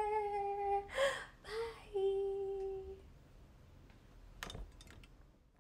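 A woman's voice humming or singing a long held note, then two short breathy sounds and a second held note of about a second. A faint click comes near the end.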